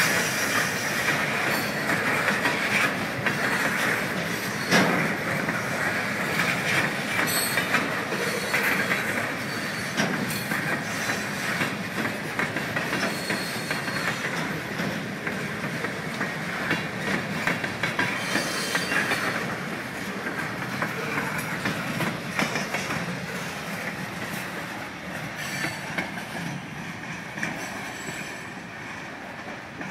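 Train of flatcars loaded with old railway ties rolling past on the rails: a steady rumble with wheels clicking over rail joints and one louder bang about five seconds in. The sound fades over the last several seconds as the end of the train moves away.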